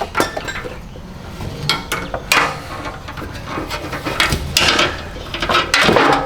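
Metal clanks and clicks of a fold-out RV step assembly being handled and shifted into position, in irregular knocks with louder strikes about two and a half seconds in and near the end.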